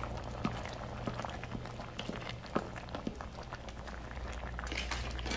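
A pot of curry with vegetables and green peas bubbling on the boil, its bubbles bursting in irregular soft pops about twice a second over a steady low hum.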